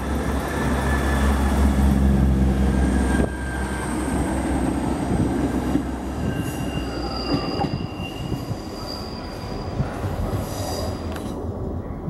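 South West Trains Class 159 diesel multiple unit pulling out: its underfloor diesel engine drones loudly under power for the first three seconds. From about halfway, the wheels squeal in high, steady tones as the train curves away over the points.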